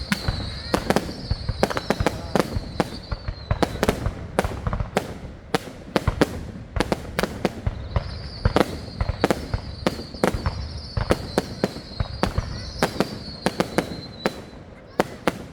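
Fireworks going off: a rapid, irregular run of sharp bangs and crackles over a thin high whistling tone that comes and goes twice. The bursts thin out at the very end as the display finishes.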